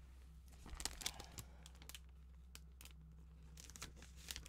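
A large sheet of paper rustling and crinkling as it is handled and turned over, with clusters of soft crackles about a second in and again near the end, over a faint low steady hum.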